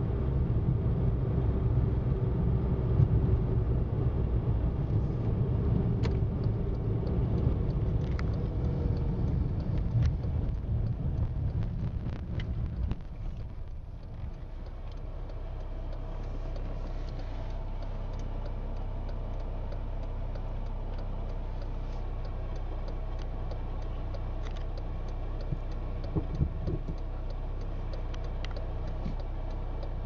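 A motor vehicle's low rumble, loud for the first dozen seconds, then dropping to a quieter steady hum, with faint scattered ticks.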